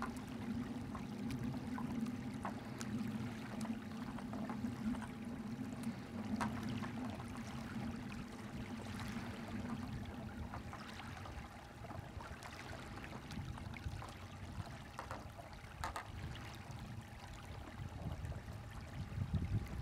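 Small waves lapping on open water, a steady wash with scattered small knocks and splashes. A low steady hum runs under it through the first half, then fades.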